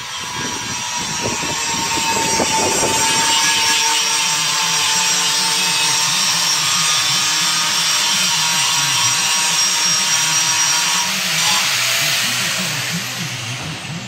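Handheld angle grinder grinding steel, sharpening angle-iron target spikes held in a bench vise: a steady whine over a loud hiss, growing louder over the first couple of seconds. Near the end it comes off the work and winds down.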